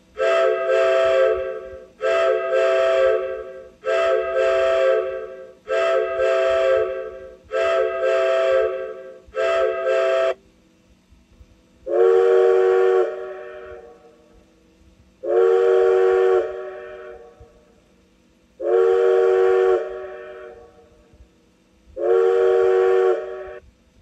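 Recorded train whistle played back by a horn sound-effects module through a test speaker: six short blasts of a chord of several notes in quick succession, then four longer blasts with longer gaps between them.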